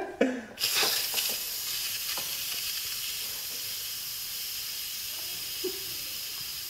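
Instant Pot's steam release valve venting in a quick release after pressure cooking: a steady hiss of escaping steam that starts suddenly about half a second in. The hiss is the pot dumping its built-up pressure before the lid can be opened.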